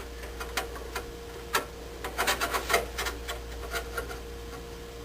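Irregular light clicks, taps and rubbing from a furnace pressure switch and its tubing being handled and set in place, with a cluster of sharper clicks in the middle.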